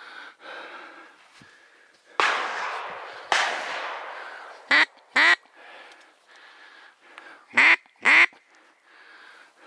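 Two shotgun shots about a second apart, each ringing off slowly, then loud duck quacks in two pairs, the quacks the loudest sounds.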